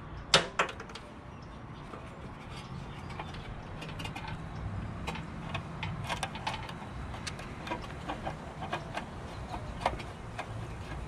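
Two sharp knocks about half a second in, then small scattered clicks and rustles of leather-gloved hands handling electrical wires and twisting a wire connector onto them.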